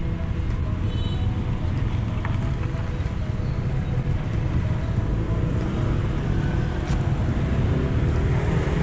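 Steady street ambience with traffic rumble, overlaid by background music.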